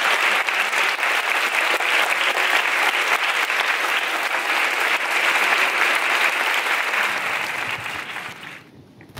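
Large conference-hall audience applauding steadily, dying away near the end and cutting off.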